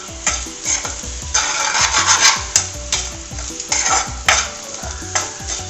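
A utensil stirring and scraping mushroom thoran around a frying pan in quick repeated strokes, about two to three a second. Under it the food sizzles as its water cooks off.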